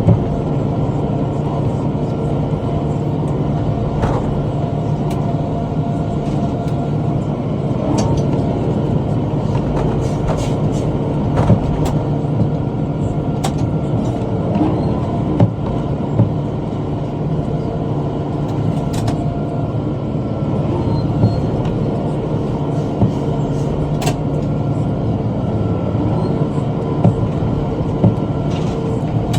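Tractor engine running steadily under load while pulling a bush hog rotary cutter through brush, with sharp knocks every few seconds.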